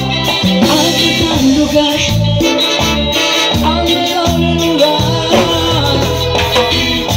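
Live Latin dance band playing an instrumental passage: a steady, repeating bass line under horns and percussion, with shakers or rattles in the rhythm.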